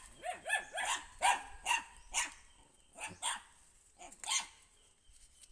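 A dog barking repeatedly: a quick run of barks, about three a second, for the first two seconds, then a few spaced barks that stop about four and a half seconds in.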